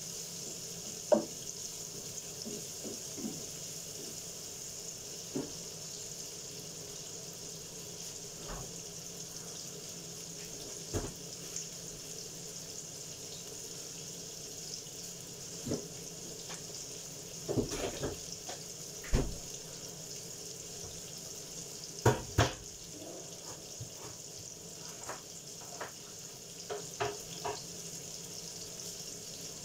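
Sliced red onions sizzling in a frying pan over a gas burner, a steady hiss. A few scattered knocks and clicks are heard, the loudest about a second in and two-thirds of the way through.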